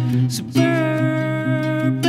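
A man singing with acoustic guitar accompaniment in a live song; after a short break about half a second in, he holds one long steady note.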